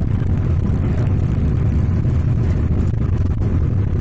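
Steady low rumble of a car driving at speed on a highway, heard from inside the cabin: road and engine noise.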